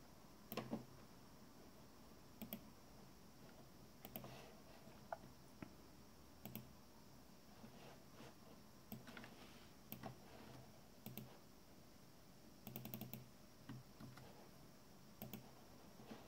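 Faint, scattered clicks of a computer mouse and keyboard, with a quick run of several clicks about three-quarters of the way through.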